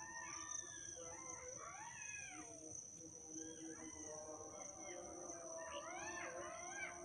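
A pack of jackals howling faintly in chorus: several overlapping wavering wails that rise and fall in pitch, in two bouts, one over the first two and a half seconds and another near the end.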